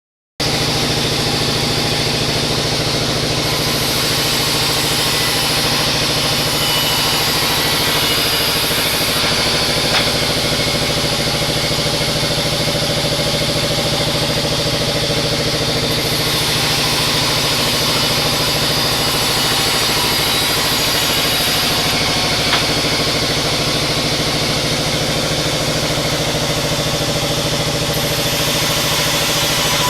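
Bandsaw sawmill running steadily with a constant engine-like drone, and a short click about ten seconds in and another past twenty seconds.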